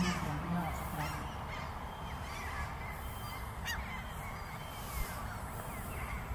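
Outdoor railway-station ambience recorded through a camera's built-in microphone: a steady background hiss with many scattered high chirps from small birds. There is a low wavering call in the first second and a single sharp click midway.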